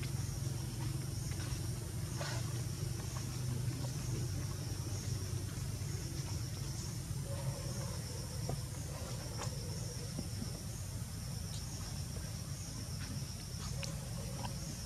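Outdoor ambience: a steady low rumble with insects chirping in a high, pulsing tone, and a few faint clicks.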